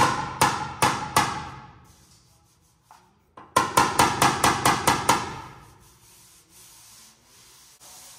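Quick series of sharp metallic taps on sheet metal, each ringing briefly: about four at the start, a pause of about two seconds, then about seven more at roughly four a second.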